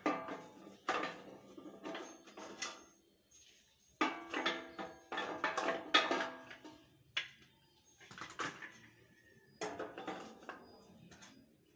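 Sheet-metal parts of a forage chopper clanking and knocking as the hopper is worked onto the frame: irregular metallic knocks in clusters, some ringing briefly, with short pauses between.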